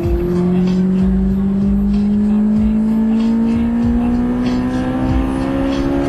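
Honda S2000's four-cylinder engine heard from inside the cabin, pulling under acceleration along a straight, its pitch climbing slowly and steadily after a brief break at the start.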